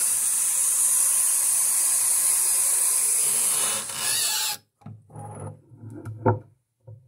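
Tap water running from a bathroom faucet into a glass bottle, steady and loud, cut off suddenly about four and a half seconds in. A few light knocks follow, one sharp knock near the end as the glass bottle is set down in the sink.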